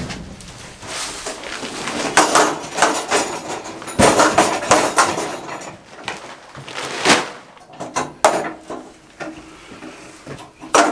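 Irregular metal clanks and knocks from an Osborne automatic hog feeder as its paddle-wheel feed mechanism is worked to check the flow; no feed is coming out yet.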